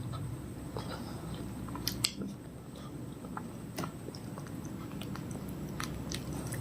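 A person chewing fruit close to the microphone: scattered small wet mouth clicks, with sharper clicks about two seconds in and again near four seconds.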